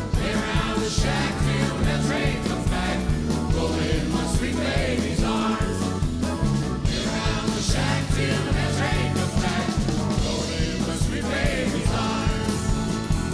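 Live country band music: electric guitars, bass and drums playing under several voices singing together.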